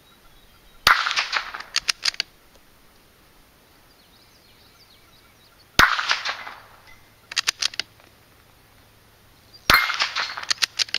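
Three shots from a Marlin Model 80 bolt-action .22 LR rifle, several seconds apart, each followed about a second later by a quick run of sharp clicks.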